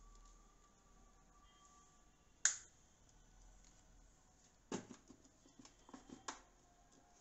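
Stainless steel mixer-grinder jar being lidded and seated on a Preethi Zodiac mixer grinder base: one sharp metallic click about two and a half seconds in, then a cluster of lighter clicks and knocks from about five to six seconds in as the jar is set in place.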